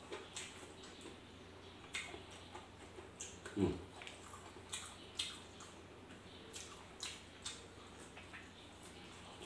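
Close-up eating sounds: a man chewing and smacking with his mouth as he eats rice and noodles by hand, a string of short wet clicks. About three and a half seconds in comes one louder, short low sound falling in pitch.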